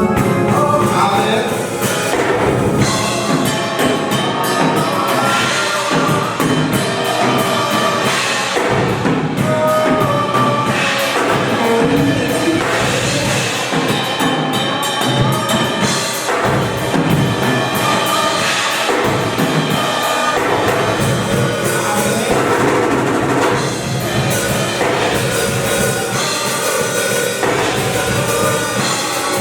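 Church music played with a drum kit, bass drum and other instruments, at a steady, full level.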